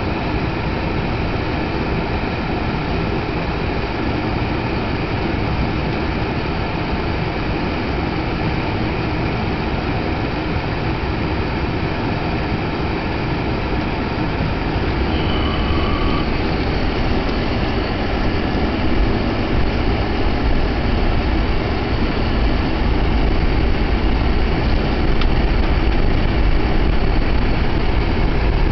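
Car cabin noise: the engine idles with a steady low rumble, then, as the car drives off, tyre and engine rumble on a snow-packed road grows louder and deeper in the second half.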